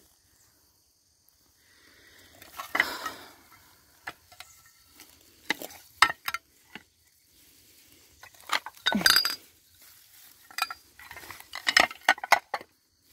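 Rustling of weeds and dry leaves, broken by sharp clicks and light clinks of old china plates being touched and moved. It comes in irregular bursts, the loudest about nine and twelve seconds in.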